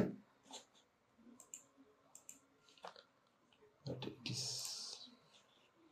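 Faint, scattered clicks of a computer mouse and keyboard. About four seconds in there is a brief low voice sound and a breathy hiss.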